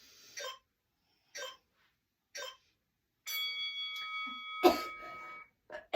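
Three short exhaled breaths about a second apart with the exercise repetitions, then a steady electronic timer tone held for about two seconds, marking the end of the work interval and the start of the rest. A thump sounds partway through the tone.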